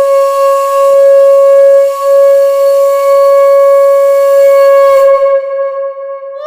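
Conch shell (shankha) blown in one long steady note, briefly dipping about two seconds in and growing quieter and slightly lower in pitch for its last second or so.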